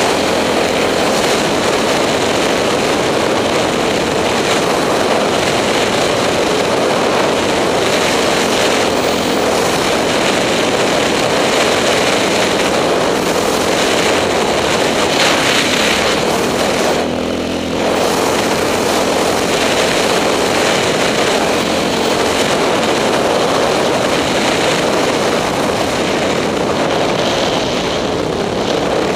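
KTM 620 LC4 single-cylinder four-stroke engine running under way on sand, mixed with wind rushing over the microphone. About seventeen seconds in the sound eases off briefly, then picks back up.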